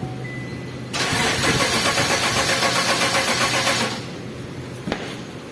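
Car engine cranking on the starter motor for about three seconds with an even, quick pulsing and not catching. It is a crank-no-start: fuel is not being delivered because the fuel pump motor is stuck. A short click follows about a second after the cranking stops.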